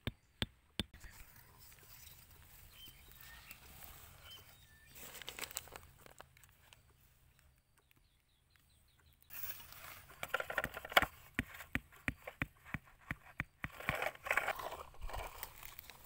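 Hands working in grass and soil: rustling and crinkling with scattered sharp clicks and taps. It is faint at first and grows busier and louder from a little past halfway.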